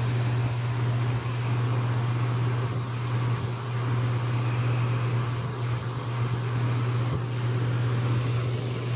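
Vornado 280B air-circulator fan running, a steady rush of air over a strong low motor hum; the owner puts the hum down to the plastic table it sits on.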